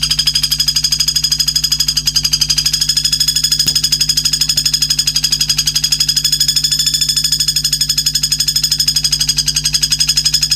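A recorded buzzing trill, pulsing rapidly and evenly at more than ten pulses a second on a steady pitch, played as filler song for training white-rumped shamas.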